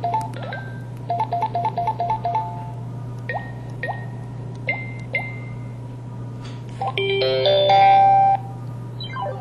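Samsung SCH-V420 mobile phone playing its built-in electronic effect sounds one after another: a quick run of repeated two-note beeps, then four short chirps, then a louder multi-note jingle about seven seconds in.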